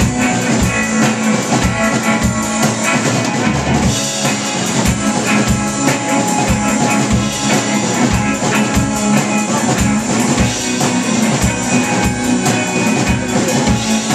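Live rock band playing an instrumental passage: drum kit with a steady kick drum beat under loud electric guitar.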